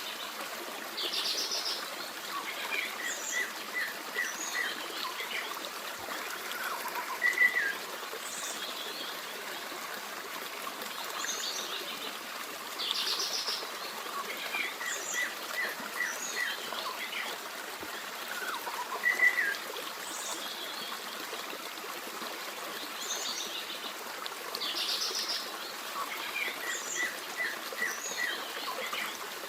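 Forest stream running steadily, with several birds singing and chirping over it. The same run of bird calls, from trills to short chirp series, comes back about every twelve seconds, like a looped recording.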